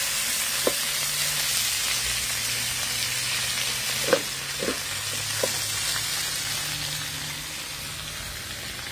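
Chicken thighs sizzling in oil in a frying pan over a wood fire, a steady frying hiss that eases slightly over the last few seconds. A few light metal clicks come through, the loudest about four seconds in.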